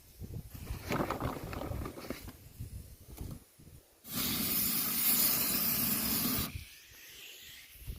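Gas barbecue grill's burner lit and hissing steadily for about two and a half seconds, starting and stopping abruptly, after a few seconds of quieter handling sounds.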